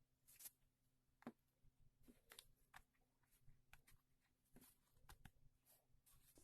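Near silence with a faint low hum and scattered faint small clicks and ticks.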